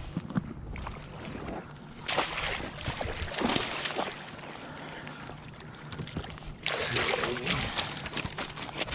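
Water splashing and sloshing close by in several separate bursts, over a steady low background.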